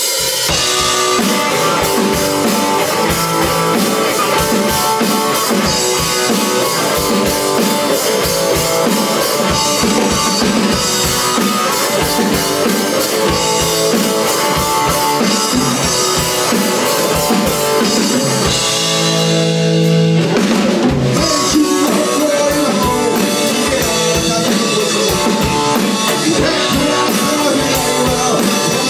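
Electric guitar played through a 1967 Supro Thunderbolt valve amplifier in a rock jam with a full drum kit. Just before two-thirds of the way through, a low guitar note is held, then the playing breaks briefly before the band comes back in.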